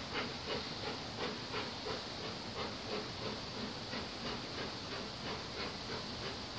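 Distant steam locomotive, BR Standard Class 4MT 4-6-0 No 75078, working toward the listener, its exhaust beats faint and steady at about three chuffs a second.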